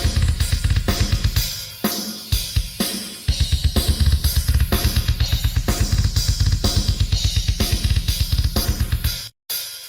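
An acoustic drum kit is played hard and fast: rapid runs of bass drum strokes under snare hits and crashing cymbals. The playing breaks off briefly about two seconds in, then resumes in a long, fast bass drum run. It cuts off suddenly just after nine seconds, and lighter playing starts again.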